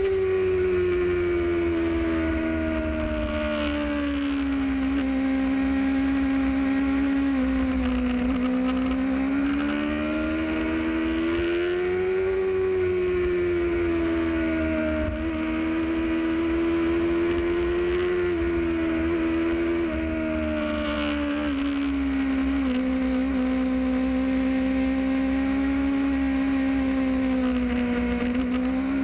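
Motorcycle engine heard from the riding bike, its note rising and falling slowly with the throttle, over a steady low rumble of wind on the microphone.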